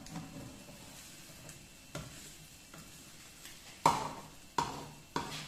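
A slotted spatula scraping and knocking against a non-stick frying pan while an egg and carrot omelette sizzles gently in oil. One sharp knock comes about two seconds in, then three more near the end, the first of those the loudest.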